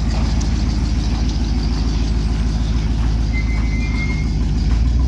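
1971 Chevy C10 pickup engine idling through a Cherry Bomb glass-pack muffler, still warming up after a cold start, with a steady, fast-pulsing low exhaust rumble that swells slightly near the end.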